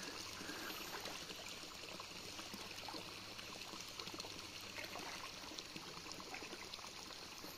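Faint, steady trickling water with a few light scattered ticks, as a hooked fish fights on the line and stirs the pond's surface.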